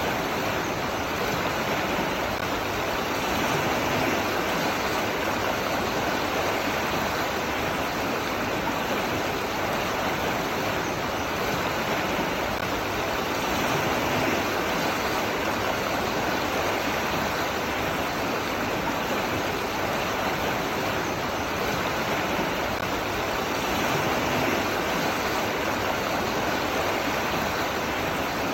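Running water rushing steadily, an even splashing flow like a stream or small waterfall, without breaks or changes.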